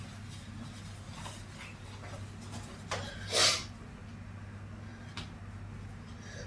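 A woman sneezing once, a single short, sharp burst about three seconds in, just after a quick catch of breath.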